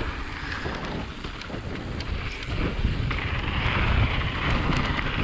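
Wind rushing over an action camera's microphone on a fast mountain-bike descent, with the knobby tyres rolling over a packed dirt trail; the rushing grows louder about three seconds in as speed builds.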